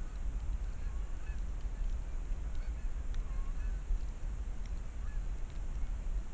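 Canada geese honking: scattered short honks over a steady low rumble.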